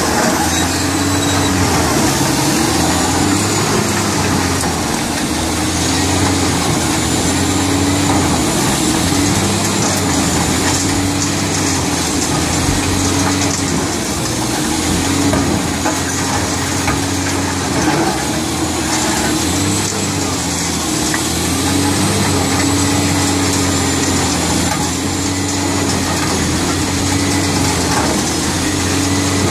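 Badger B600 concrete shredder running under load while shredding concrete with rebar: a steady heavy diesel engine drone whose pitch dips and recovers every few seconds as it takes the load, over a continuous grinding clatter of broken concrete.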